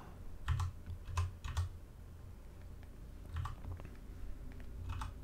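Computer keyboard keys being pressed in a few short groups of taps, with pauses between.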